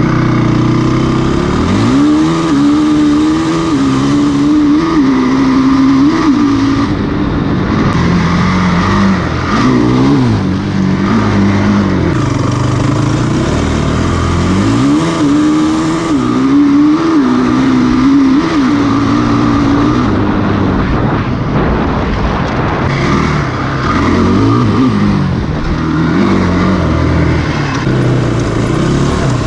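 Honda TRX450ER sport quad's single-cylinder four-stroke engine under hard riding, its note climbing through the revs, dropping back at each shift and easing off between pulls.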